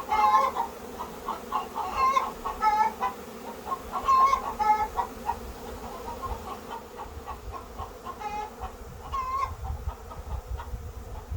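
Chickens clucking and squawking in short repeated calls, loudest in the first five seconds and again twice near the end, over the steady hum of a honey bee swarm flying around the hives.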